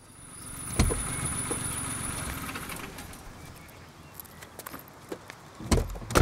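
A Maruti 800's passenger door slamming shut near the end with a heavy double thump. Earlier there is a thump about a second in, then a couple of seconds of steady rushing noise with a thin high whine that dies away.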